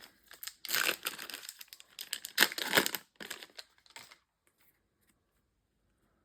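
Trading-card booster pack's foil wrapper being torn open and crinkled, in a few irregular rustling bursts, the loudest about two and a half seconds in.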